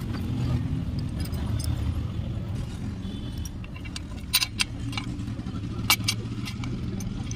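Small steel gearbox gears and shafts clinking against each other and the aluminium crankcase as they are fitted into an open motorcycle engine case, with a few sharp clinks past the middle. A steady low rumble runs underneath.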